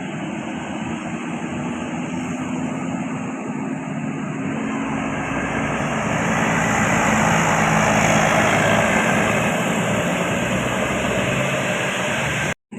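Bus driving past on the road: engine hum under a broad rush of tyre and air noise, growing louder to a peak about eight seconds in. It cuts off suddenly near the end.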